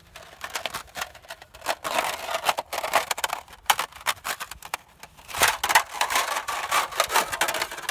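Thin embossed metal sheets of a FluxWrap-It folding stove crinkling and clicking as they are handled and rolled up by hand: a dense run of sharp, irregular crackles, busiest from about five and a half seconds in.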